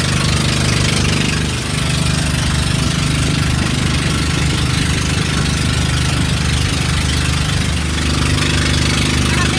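Outrigger boat's (bangka's) engine running steadily, with a constant hiss over it.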